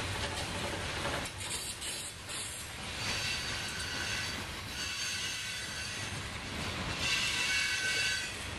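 Freight train of covered hopper cars rolling past with a steady rumble, and a high-pitched metallic squeal from the wheels on the rails that comes in about three seconds in and is loudest near the end.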